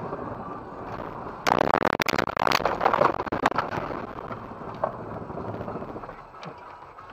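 Car driving on a snowy, icy road with steady road noise, broken about one and a half seconds in by a sudden burst of loud crunching knocks and bangs lasting about two seconds.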